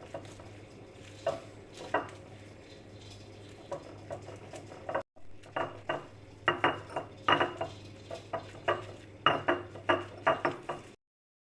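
A spoon stirring a mixture in a container, clinking against its sides. A few scattered clinks come first, then from about halfway in a quick run of sharp clinks, and the sound stops suddenly near the end.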